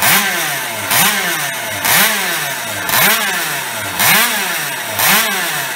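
Minarelli 50 cc rotary-disc-valve two-stroke racing engine of a PCB Minarelli 50 replica, running on its paddock stand and revved in short throttle blips about once a second. Each blip rises sharply in pitch and then falls back.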